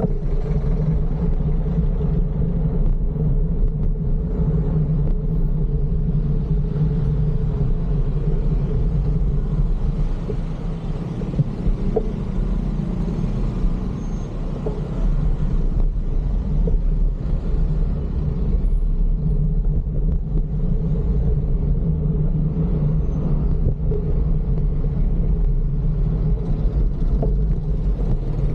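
Steady low rumble of road and traffic noise heard from a moving bicycle, with motor vehicles running nearby. Slightly quieter around the middle, with a lighter hiss.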